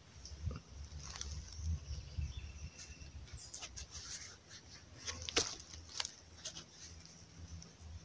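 A gloved hand rubbing and scrunching against a small lead figurine as it is cleaned, with scattered light clicks and crackles and a low rumble of handling.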